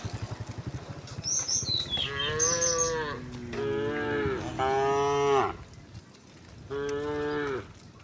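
A herd of domestic cattle mooing: four drawn-out moos of about a second each, one of them lower-pitched and overlapping the next.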